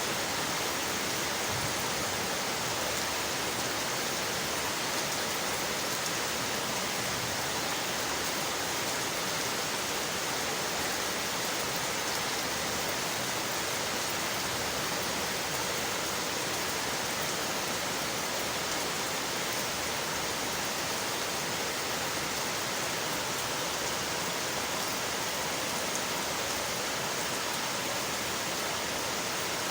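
Steady rain falling on window glass, an even hiss with no let-up.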